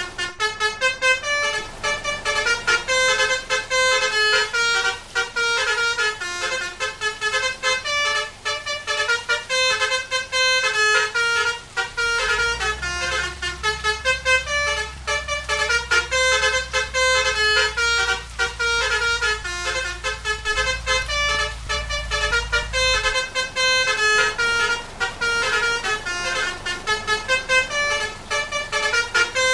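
A bus's 'telolet' basuri melody horn plays a fast tune of short stepped notes without a break. A low steady rumble joins underneath from about twelve to twenty-three seconds in.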